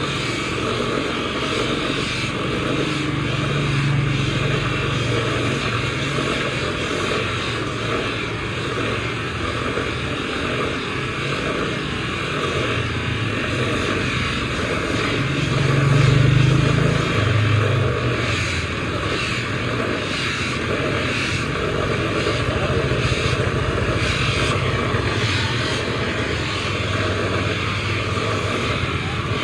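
A motor or machine running steadily, with a low hum that swells briefly a few times, loudest about halfway through.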